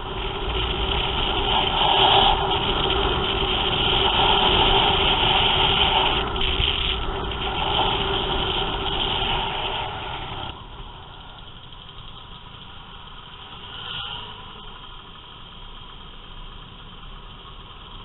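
Motor scooter engine running under way, with loud rushing road noise. About ten seconds in the sound drops suddenly to a quieter, steady engine hum of scooters riding slowly in a pack.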